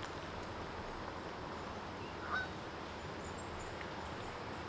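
A single short goose honk about halfway through, over a steady outdoor background hiss.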